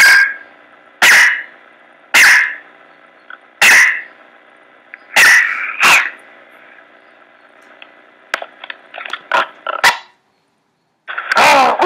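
Dog barking: six loud single barks spaced about a second apart, then a run of shorter, quieter sounds. The sound cuts out briefly before a louder, denser stretch starts near the end.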